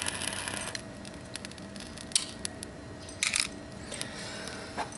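Torch lighter hissing briefly at the start and again about three seconds in, with a few faint clicks between.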